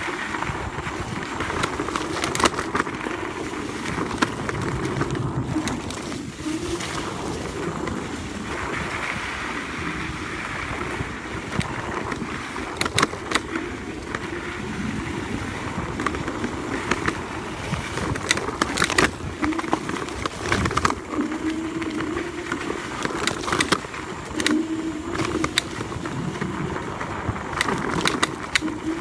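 Dualtron Ultra electric scooter riding over a rough dirt trail: tyres rolling over dirt and dry leaves with a steady rumble, the scooter rattling and knocking over bumps many times, and a low hum that comes and goes.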